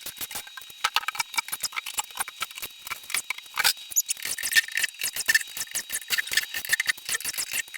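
A shipping crate being opened by hand: a rapid, irregular run of sharp clicks and scrapes.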